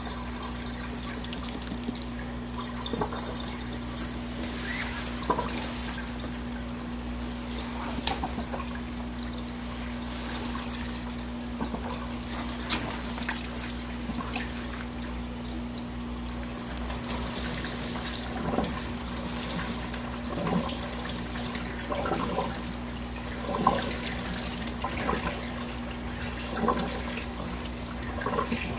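Portable RV washing machine running a warm-water rinse: a steady motor hum with water sloshing and splashing in the tub at irregular moments, more often in the second half.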